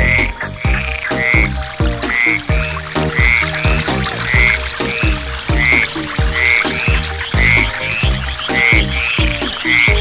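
Frogs calling: a short, high croak repeated about once or twice a second, over a low, rhythmic pulsing.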